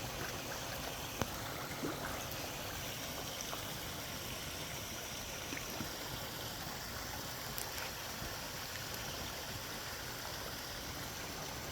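Small backyard pond waterfall running, water splashing steadily into the pond. A single sharp click about a second in.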